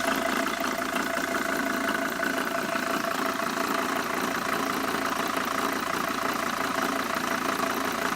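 Dodge Sprinter van engine idling with a steady rumble, which the owner traced to a failing harmonic balancer. The sound cuts off at the end.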